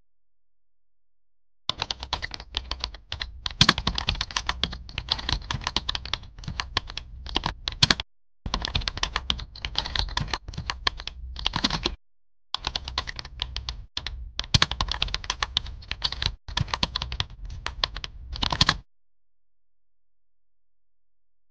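Rapid clicking of typing on a computer keyboard, in several runs broken by brief pauses. It starts about two seconds in and stops a few seconds before the end.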